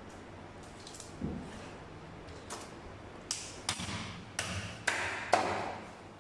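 Long knife cutting into a tuna on a cutting board: a dull thump, then a run of sharp knocks and scrapes of the blade against the fish and board, busiest in the second half.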